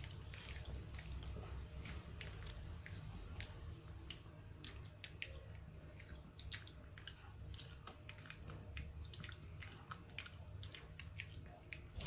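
A Pekingese dog chewing and biting on food, a steady run of small, irregular crunching clicks.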